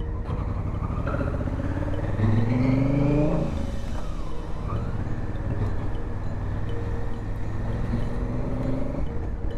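Motorcycle engine under way: about two seconds in it rises in pitch for a second or so as the bike accelerates, then settles. A steady low rumble runs underneath.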